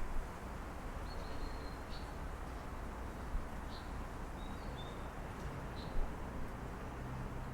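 Steady hum of distant city traffic, with a small bird giving several short, high chirps over it.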